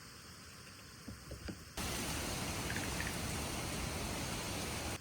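Rain falling, a steady hiss with a few faint ticks of drips. About two seconds in, a much louder, even rushing hiss cuts in abruptly and holds steady.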